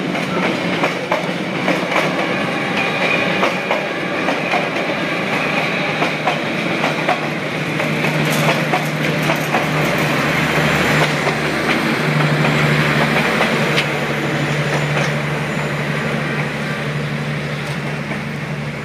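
Passenger train coaches rolling past at a level crossing, their wheels clacking over the rail joints in a steady rumble. About halfway through a steady low hum joins in.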